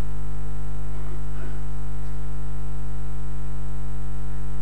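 Steady, loud electrical mains hum with many overtones from the audio system, unchanging throughout.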